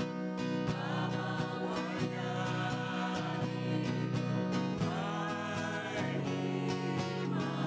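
Strummed acoustic guitar accompanying a singer in a country-gospel style; the voice comes in about a second in and again around five seconds in.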